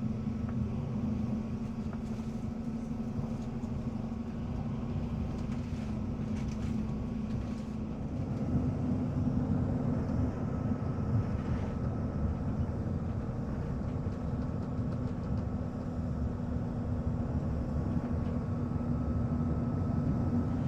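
Moving bus heard from inside: steady engine drone and road rumble with a constant low hum, a little louder from about eight seconds in.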